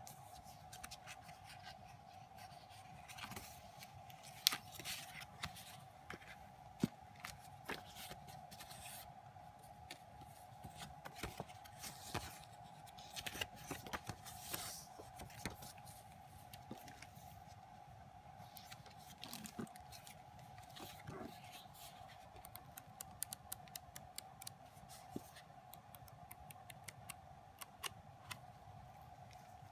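Pages of a CD album's photobook being handled and turned: faint paper rustles, flicks and clicks, with a quicker run of ticks near the end, over a steady faint hum.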